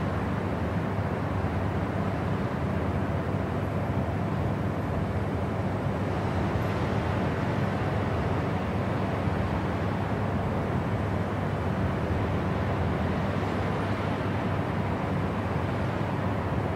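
Jet airliner cabin noise in cruise, heard from inside the cabin: a steady, even low-heavy noise of engines and airflow that does not change.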